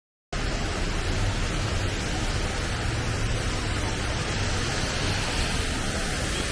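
Steady rushing of a large waterfall, a constant even roar that cuts in abruptly just after the start.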